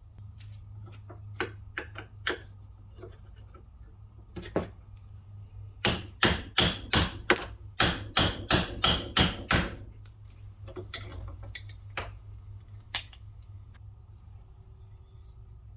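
Hammer blows taking apart an old rusty hammer. A few scattered knocks and taps come first, then a quick run of about a dozen hard strikes at roughly three a second, then more occasional knocks.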